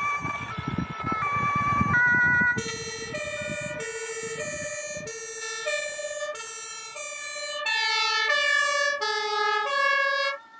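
German two-tone emergency-vehicle siren (Martinhorn) alternating pitch about every 0.6 s as the fire-brigade first-responder car passes. At first it is the higher-pitched electronic siren over the car's road noise. About two and a half seconds in, it changes to a lower, fuller two-tone from the compressed-air horn, which is loudest near the end.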